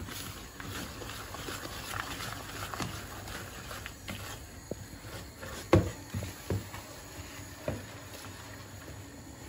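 Wire whisk stirring a thick, crumbly cake-base mixture in a ceramic bowl: irregular soft scraping, with a few sharp knocks of the whisk or bowl around the middle, the loudest about six seconds in.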